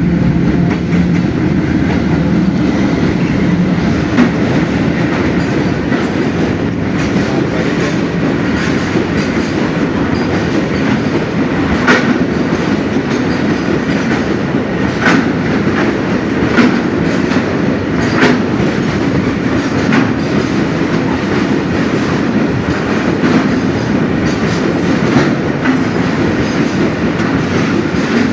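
Freight train wagons rolling over the rails with a steady rumble and clickety-clack, with a few sharp clanks in the middle.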